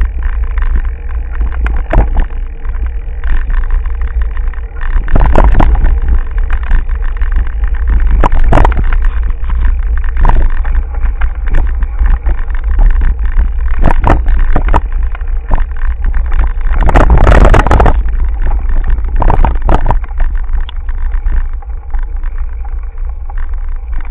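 Wind buffeting the microphone of a camera mounted on a mountain bike rolling over a dirt road, a constant deep rumble. Irregular knocks and rattles come from the bike and camera mount jolting over bumps and loose gravel, with a louder rough patch about 17 seconds in.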